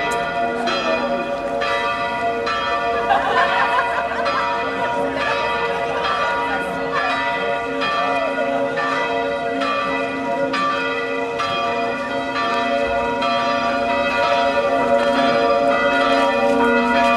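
Church bells pealing, several bells struck over and over about once a second, their tones ringing on and overlapping.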